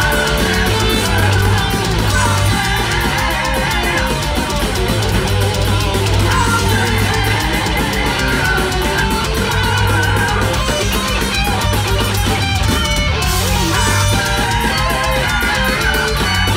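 Heavy metal band playing live: distorted electric guitars over fast drumming, with a singer's voice wavering above, heard from among the crowd.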